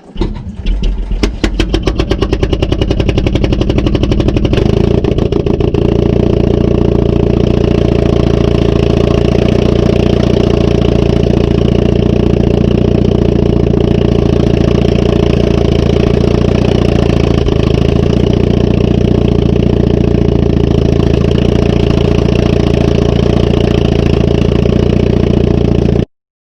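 Truck engine starting, its firing pulses quickening over the first few seconds, then running steadily at idle. It cuts off suddenly near the end.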